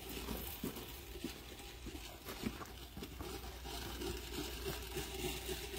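Faint rustling and crackling of sisal rope being laid by hand: three strands twisting together behind a wooden laying top as it is guided along, with small irregular clicks.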